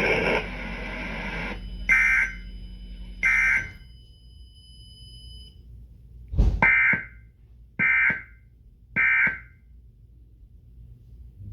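Emergency Alert System end-of-message data bursts: short, harsh digital buzzes, two and then three, each under half a second and about a second apart. Louder broadcast sound cuts off about half a second in.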